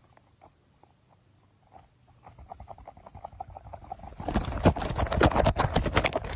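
Handling noise on a phone's microphone as a plush shark hand puppet is pushed against it: rapid scraping, rustling and tapping. It is faint at first, grows from about two seconds in and is loud from about four seconds.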